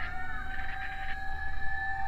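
Fire truck siren holding one steady high note, over a low engine rumble.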